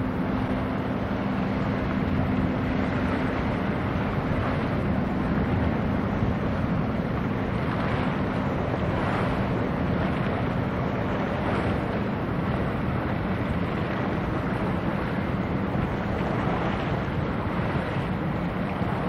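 Wind buffeting the microphone over choppy sea and breaking wavelets, with a steady low drone from the passing bulk carrier's engine beneath it.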